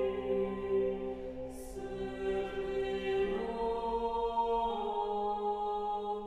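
A cappella chamber choir singing slow sacred chant in sustained chords, the harmony moving to new chords about three seconds in and again near five seconds.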